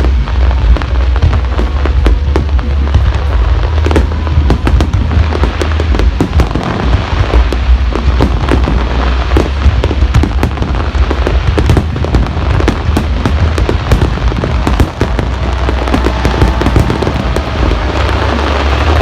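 Aerial fireworks going off in a dense, continuous barrage: many sharp bangs and crackles a second over a steady deep rumble.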